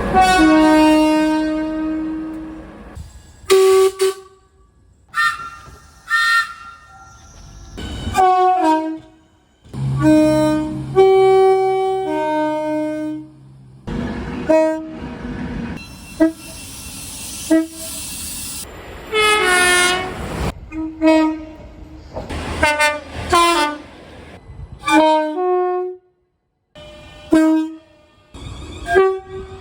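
Train horns sounding chords in a run of separate clips cut one after another: a long blast at the start, then many shorter blasts and a few held ones, each clip ending abruptly. Under one long blast a low steady hum from the locomotive can be heard, and between blasts there is the noise of the train running.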